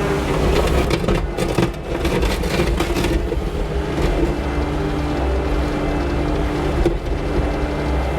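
New Holland L318 skid steer's engine running steadily under load, with a brief spell of clattering about one to three seconds in and a single knock near the end.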